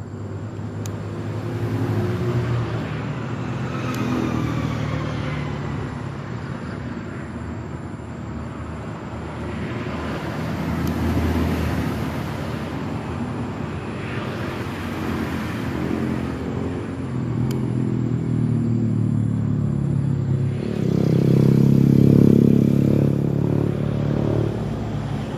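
Passing road traffic: vehicle engines swell and fade as they go by. The loudest one passes near the end.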